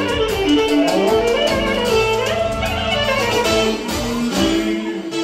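Live band dance music: a melodic lead line over a steady beat.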